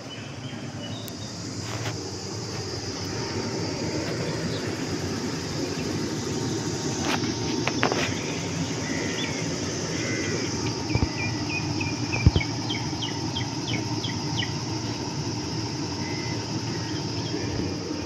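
Outdoor ambience with a steady high hiss and a low rumble. Partway through, a bird calls a run of short notes that climb in pitch. A few sharp knocks come from handling, the loudest about two-thirds of the way through.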